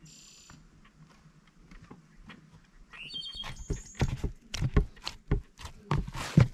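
A run of irregular sharp knocks and taps that starts about halfway through and gets louder toward the end, with a few short high chirps in the quieter first half.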